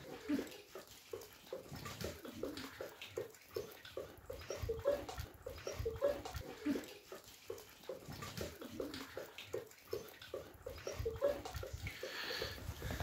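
A grey wolf-like dog lapping from a metal bucket: a long run of quick wet laps, about three to four a second, with a few short pauses.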